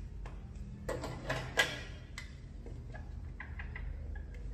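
Light, irregular clicks and taps of a whiteboard marker and eraser being handled at a whiteboard, about a dozen in all. Near the end comes a quick run of short strokes as the eraser wipes writing off the board.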